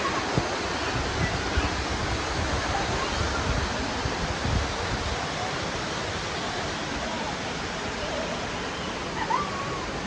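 Steady rushing of a shallow river and waterfall, a dense even hiss of flowing water with some low rumbling in the first half.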